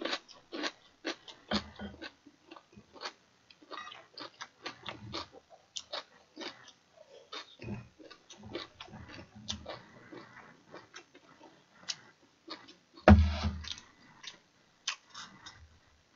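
Close-up eating sounds: chewing and smacking of rice and stew, with many small clicks of metal chopsticks against bowls. One louder, fuller sound comes about 13 seconds in.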